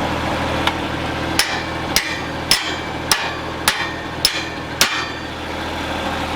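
A hammer striking metal seven times in a steady rhythm, about two blows a second, each with a short ring, after one lighter tap. The skid steer's diesel engine idles underneath.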